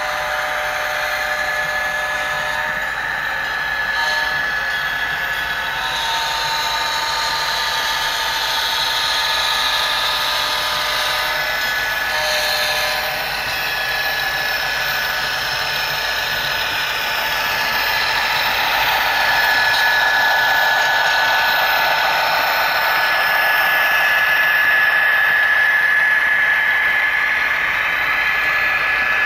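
HO scale Norfolk Southern diesel locomotives with SoundTraxx Tsunami sound decoders playing diesel engine sound through their small onboard speakers: a tinny, bass-less drone with steady tones, getting louder as the train comes closer and passes.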